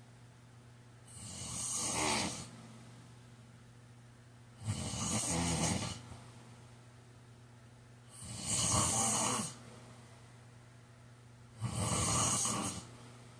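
A man snoring in his sleep: four snores about three and a half seconds apart, each lasting a little over a second.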